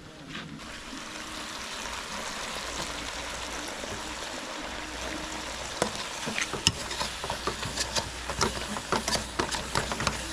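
Goat meat ragout frying in a pot with a steady sizzle; from about six seconds in, a stirring utensil knocks and scrapes against the pot in quick, irregular strokes.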